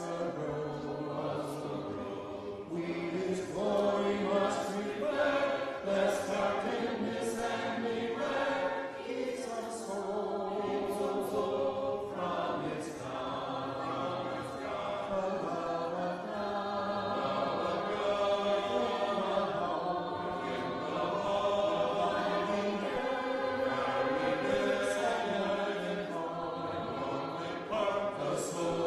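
Church congregation singing a hymn a cappella, many voices together in a sustained, continuous line.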